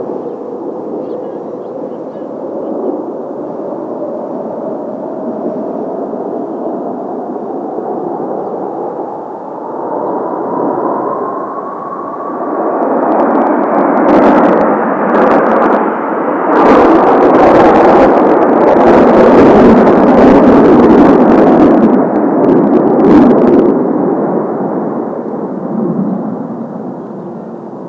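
Kawasaki T-4 jet trainers passing overhead. A rising engine whine over steady jet noise builds to its loudest about halfway through, with sharp crackles, then fades away.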